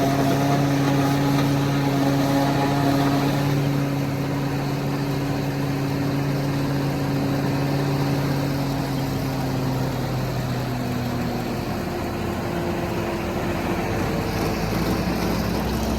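Farm tractor engine running steadily while hauling a full load of chopped maize, with its pitch easing down a little about two-thirds of the way through.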